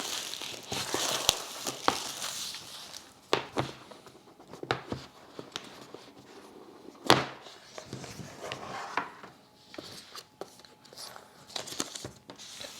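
Unboxing handling sounds: packaging rustling at first, then scattered taps and knocks of the box and its contents being handled, the sharpest about seven seconds in.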